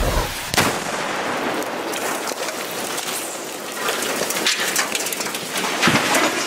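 Aftermath of a vehicle explosion: dense crackling and pattering of debris and burning fragments raining down, with a sharp bang about half a second in.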